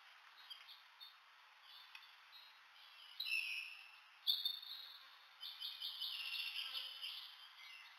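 Faint bird chirps: a short chirp about three seconds in, another just after four seconds, then a quick run of high chirps from about five and a half to seven seconds.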